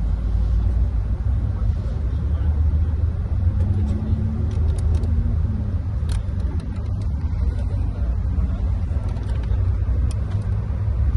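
Steady low rumble of a coach's engine and running gear, heard inside the passenger cabin. A few faint clicks sound over it.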